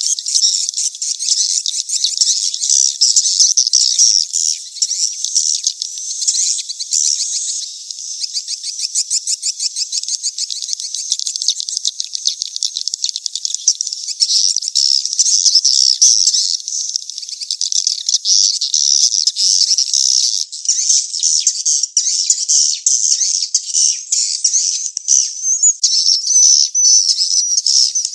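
Swiftlet lure-call recording: dense, rapid high-pitched twittering and trilling chirps of swiftlets, the mating-chase calls that farmers play to draw birds into a swiftlet house. The sound is thin, with no low end at all.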